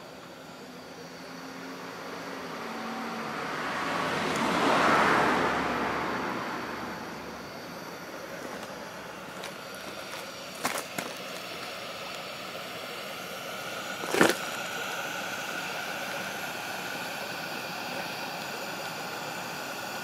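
Petromax-style Chinese kerosene pressure lantern burning with a steady hiss. A passing car swells and fades a few seconds in, and there are a couple of sharp clicks and a knock about two-thirds of the way through.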